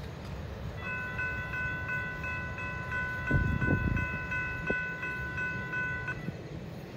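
Florida East Coast freight locomotive's horn sounding one long blast of several notes together, held about five seconds, over the low steady rumble of the passing train, with a few low thumps about halfway through.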